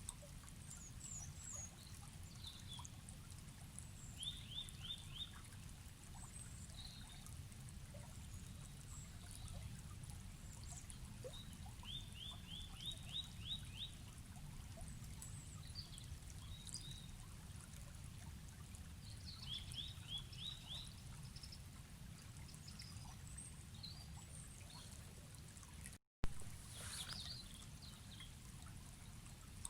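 Forest river flowing steadily, with small birds calling over it: several runs of five to seven quick chirps and scattered high twitters. A brief cut-out ending in a sharp click near the end.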